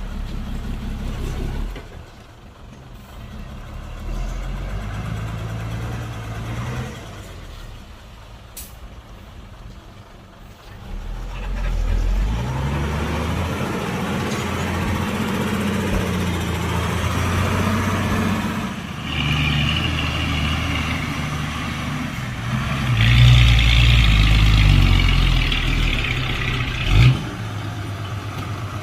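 Heavy diesel engines of a bulldozer and dump truck working, the engine pitch rising and falling as they rev. Later a higher hissing band joins in, and a sharp bang sounds near the end.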